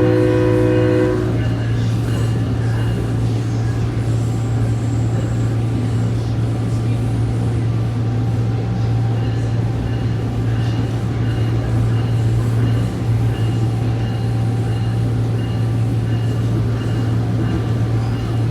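SMART diesel multiple-unit commuter train running, with a steady low drone throughout. Its horn is sounding at the start and cuts off about a second in.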